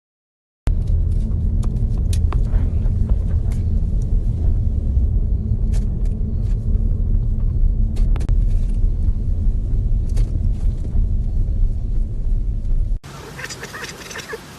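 Loud, steady low rumble with a few scattered light clicks, cutting off suddenly near the end.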